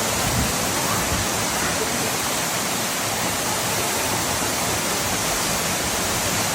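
Waterfall: water pouring down in a steady, loud rush.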